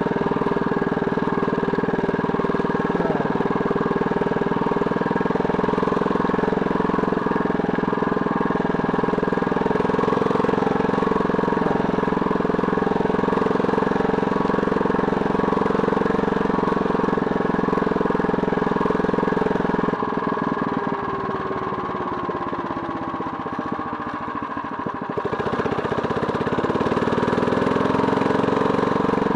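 A 79cc Predator single-cylinder four-stroke engine on a motorized bike runs steadily under throttle while riding. About twenty seconds in it eases off and its pitch falls as the revs drop, then about five seconds later it picks up again with a rising pitch.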